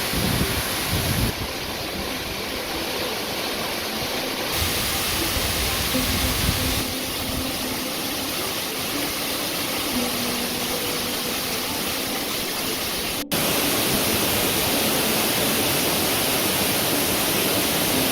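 Waterfall: a steady rush of falling water. Its tone changes abruptly several times and it gets louder about thirteen seconds in.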